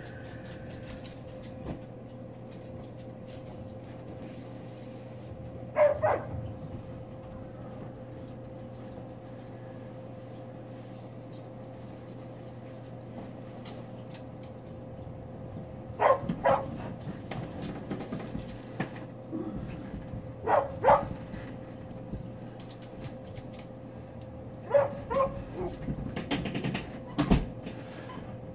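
Dog barking during play: short pairs of sharp barks, about five times, with long pauses between. A steady hum runs underneath.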